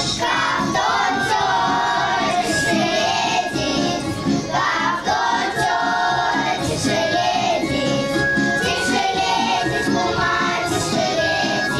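A group of young children singing a song together in unison, with instrumental accompaniment.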